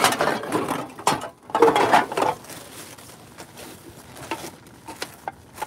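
Plastic trash bags rustling and crinkling as they are grabbed and pushed around by hand, in two louder bursts in the first half, then fainter scattered rustles and small clicks.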